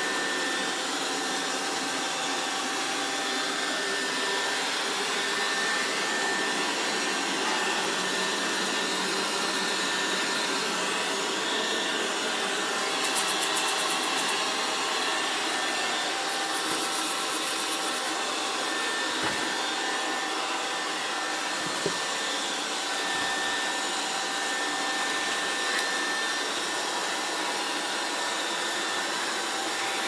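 Tesvor S6 robot vacuum cleaner running as it drives over tile floor: a steady whir of its suction fan and brushes with a faint steady whine. Two short stretches of rapid clicking come about halfway through, and a couple of single knocks follow soon after.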